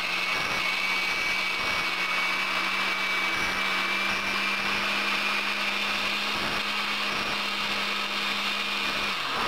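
Countertop blender motor running steadily with a high whine, churning soaked bread into a thick sauce. It cuts out near the end.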